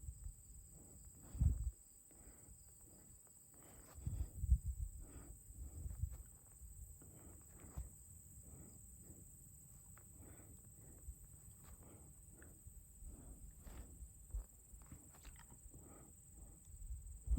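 Faint footsteps of a hiker walking along a mountain trail, a soft step roughly every half second to second. A few louder low rumbles come about a second and a half in and again around four to six seconds in.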